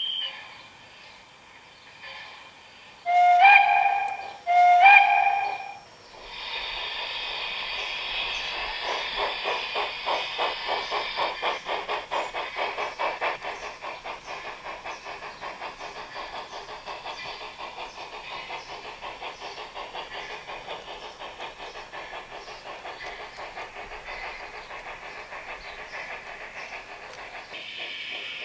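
Sound module of an LGB model rack tank locomotive playing the recorded sound of the Ballenberg steam railway's HG 3/3 rack steam locomotive: two short whistle blasts, then rapid steam chuffs with hiss as it pulls away, settling into steady running chuffs.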